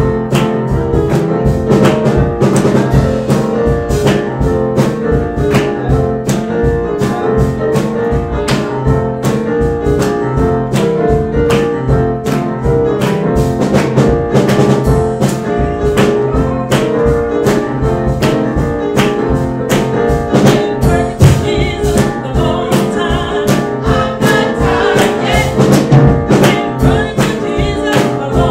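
Gospel music with singing over a steady drum beat and held chords.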